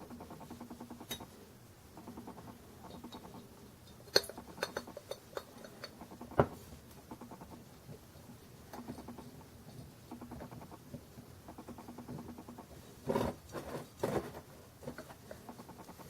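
Small metal tool scraping and clicking as it is turned by hand in the pin valve of a miniature oxygen bottle, with a few sharp metal clicks and a short run of knocks near the end.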